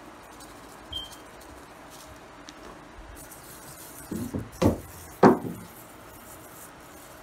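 Hand patting seasoning onto raw steaks in a skillet: a few short dull thumps about four to five and a half seconds in, the last the loudest, over a faint steady hiss.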